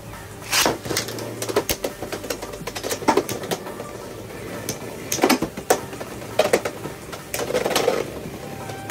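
Beyblade X spinning tops clashing: sharp plastic-and-metal clacks at uneven intervals, several in quick clusters.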